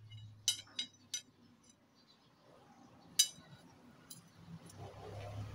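A few sharp metal clinks of steel tyre levers knocking against a motorcycle front brake caliper and old brake pad as they are levered to push the brake piston back into the caliper. About five scattered clicks, three close together in the first second or so, then two more.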